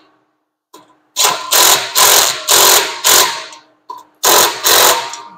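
Cordless power tool run in short bursts, about eight spurts in two groups with a pause in the middle, driving in the clutch pressure-plate bolts on a flywheel until they are snug.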